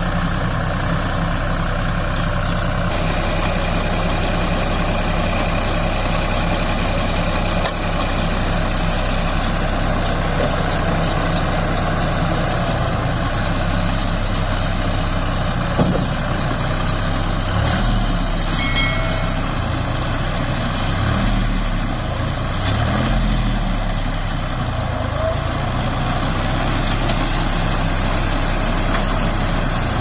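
Deutz-Fahr Agromaxx 4050E tractor's diesel engine running steadily under load while driving a round straw baler, with the baler's mechanism running along with it. The engine pitch wavers up and down a few times past the middle, and there is a single sharp tick just after the middle.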